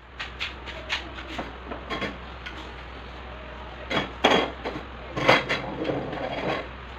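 Clicks and knocks of crib parts being handled and fitted together, with a few sharper knocks about four and five seconds in, over a steady low hum.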